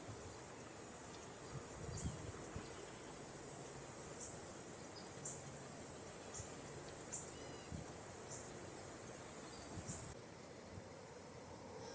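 Outdoor insect chorus: a steady high drone with short high chirps about once a second, the drone cutting off abruptly near the end.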